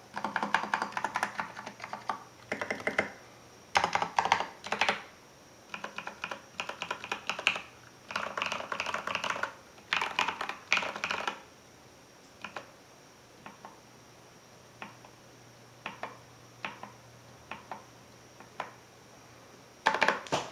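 Filco Majestouch 2 mechanical keyboard with Krytox-lubed Cherry MX Ergo Clear switches and SA-profile doubleshot ABS keycaps being typed on: fast runs of keystrokes for about the first eleven seconds, then single keys pressed one at a time with pauses between, and a quick burst of typing near the end.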